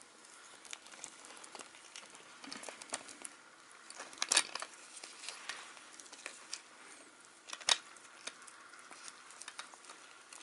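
Puppies chewing and tugging at paper on a toy car: paper crinkling and rustling with scattered small clicks, two sharper clicks about four and eight seconds in.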